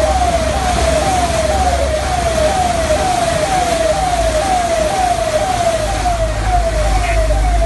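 A siren-like electronic tone repeating in short sweeps, about two a second, over the low rumble of a vehicle's engine and the rush of flood water churned up as it drives through a waterlogged street.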